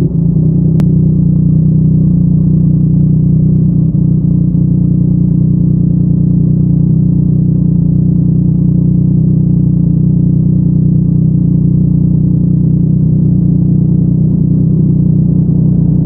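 Yamaha MT-09's inline three-cylinder engine with a Yoshimura R55 slip-on exhaust, idling steadily at a constant low pitch.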